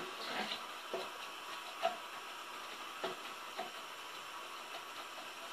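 Diced onion frying gently in oil in a non-stick pan as it is browned, with a soft steady sizzle and a handful of light, irregular taps of a wooden spoon against the pan as it is stirred.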